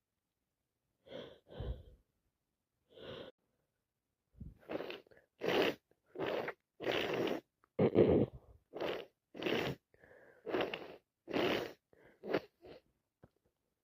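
A person with a head cold sneezing and wheezing: a few short breaths, then a fast run of about a dozen short, sharp bursts, one every half second or so, loudest about eight seconds in.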